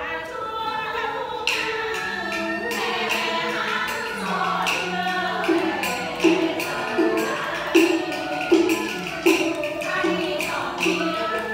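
Vietnamese chèo-style folk lullaby (hát ru) sung with traditional instrumental accompaniment. A steady beat of sharp percussion clicks runs about every three-quarters of a second from about halfway through.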